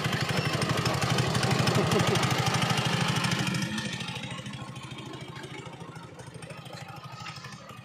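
Small go-kart engine running with a fast, even pulse, loud at first and then fading after about three and a half seconds as the kart drives off down the track.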